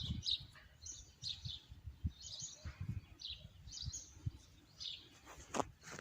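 Small birds chirping, short high calls repeating one after another, with a few soft low thumps underneath.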